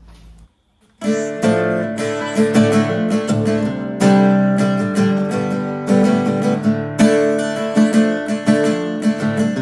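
Background music of a strummed acoustic guitar, cutting in about a second in after a brief moment of silence.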